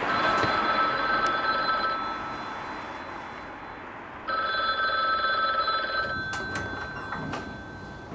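Payphone in a red public telephone box ringing: two long electronic rings of about two seconds each, with a pause between. A few clicks and knocks come near the end.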